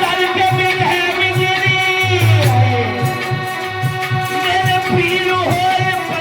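Devotional bhajan accompaniment playing between sung lines: sustained, gliding melody notes over a steady low drum beat.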